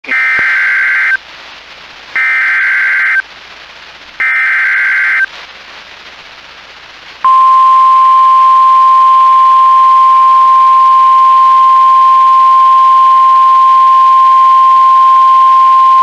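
NOAA Weather Radio emergency alert picked up by a software-defined radio: three one-second bursts of buzzy SAME digital header data about a second apart, then the steady 1050 Hz warning alarm tone from about seven seconds in, held for about nine seconds. The header and tone announce a severe thunderstorm warning.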